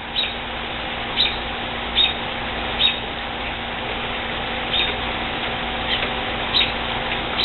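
A bird chirping in short, high notes about once a second over a steady background hiss and low hum.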